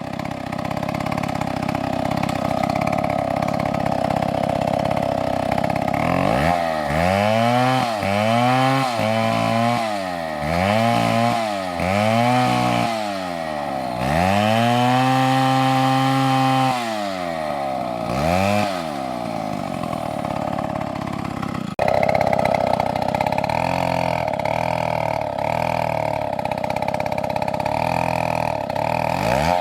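Two-stroke chainsaw running and cutting, its engine speed rising and falling over and over about once a second. Midway it is held at high speed for a couple of seconds. About two-thirds of the way in, the sound changes suddenly to a steadier, louder run.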